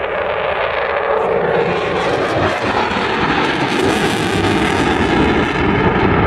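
Eurofighter Typhoon fighter jet flying a display, its twin EJ200 turbofan engines making a loud, steady jet roar that grows gradually louder.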